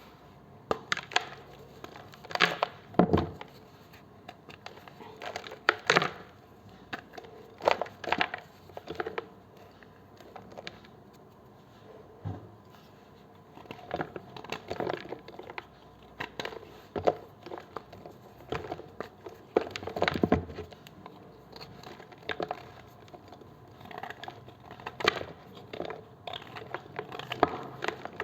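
A knife cutting into blocks of gym chalk, each cut a short run of crunchy crackles, repeating every second or two with brief pauses between.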